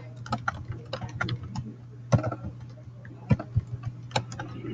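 Computer keyboard keys clicking in quick, irregular runs as text is typed, over a low steady hum.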